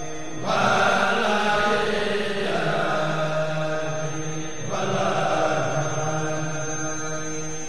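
A group of voices chanting in unison in long held phrases, a new phrase starting about half a second in and another near five seconds in.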